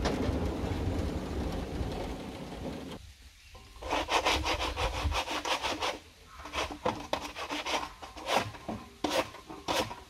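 A hand brush scrubbing dirt off the bark of a log, in quick runs of rhythmic scraping strokes, about five a second, starting about four seconds in and then coming in shorter groups. Before it there is a steady low rumbling noise for about three seconds.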